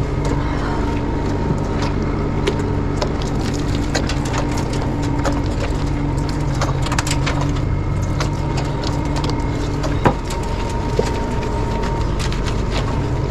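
Steady running water in a stainless steel grooming tub with a low hum, overlaid with crackling, squelching clicks as shampoo is worked by hand into a wet dog's coat.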